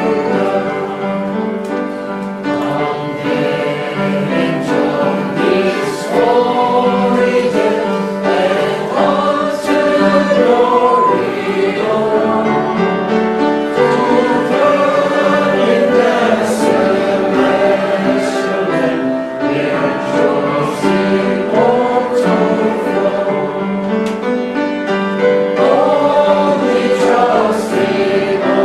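A group of voices singing a hymn together, steady and full throughout.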